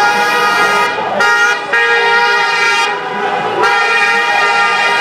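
Many car horns honking at once in long, overlapping blasts of several pitches, with brief gaps about a second in and about three seconds in.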